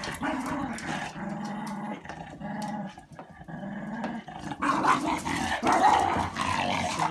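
Cockalier puppies growling in rough play as they wrestle, in a string of steady growls. The growling grows louder about five seconds in.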